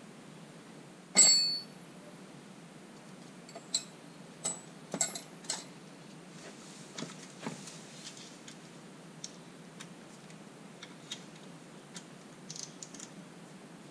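Metal tools and hydraulic fittings clinking as a stern drive's trim lines are worked by hand: one sharp ringing clink about a second in, then scattered lighter clicks and taps.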